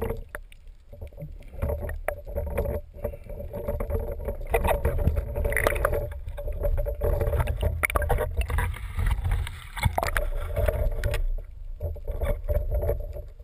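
Muffled underwater sound picked up through a waterproof camera housing on a speargun: a continuous low rumble of moving water with frequent knocks and clicks as the gun and its line are handled, busiest in the middle.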